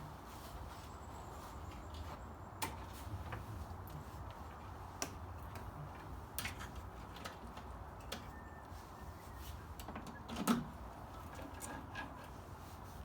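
Scattered light clicks and knocks of parts being handled and pulled free while a console stereo is taken apart, with one louder knock about ten and a half seconds in.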